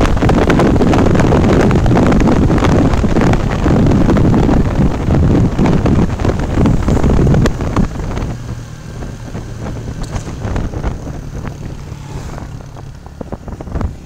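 Loud road and wind rumble of a vehicle driving through a long road tunnel, with no other distinct sound. About eight seconds in it drops to a quieter, steady engine hum.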